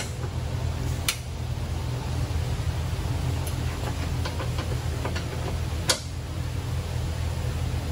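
Wrench working on a car's suspension adjuster during a wheel alignment: two sharp metallic clicks, about a second in and near six seconds, with a quick run of light ticks between, over a steady low shop hum.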